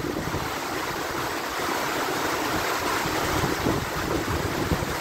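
Heavy rain pouring steadily, an even hiss of falling water.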